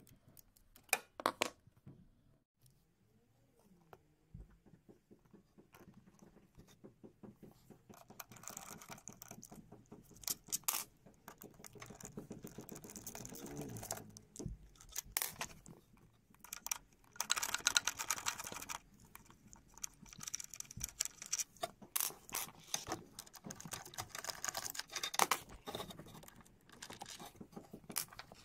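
Irregular clicking, tapping and rustling of hands handling washing machine parts, denser in several stretches, with a brief whine that rises and falls near the middle.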